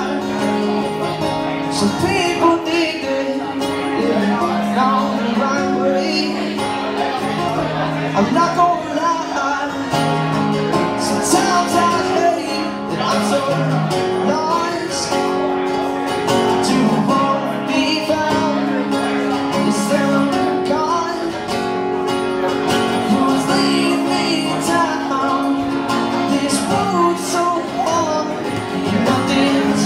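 Live acoustic guitar music with singing, the chords changing every second or two.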